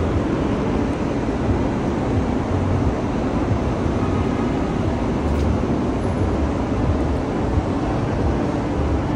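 New York City subway #1 train running at a steady pace, with a constant low noise from the car and track that holds level throughout.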